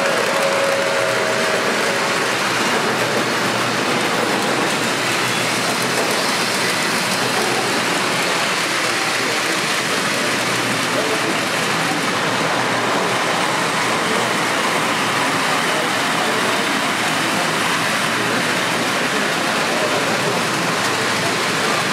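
Model IRT Redbird subway train running on a layout's track: a steady hiss and rumble of the running trains, with a murmur of voices behind it.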